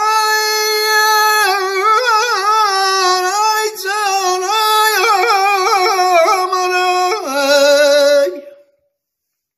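Melody of an Azerbaijani folk song: one unbroken line full of quick trills and turns. About seven seconds in it drops to a lower held note, then stops abruptly.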